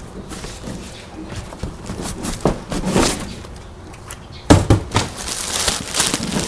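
Shipping box of plants being unpacked by hand: irregular rustling and clicking of the box and its packing, with a loud thump about four and a half seconds in.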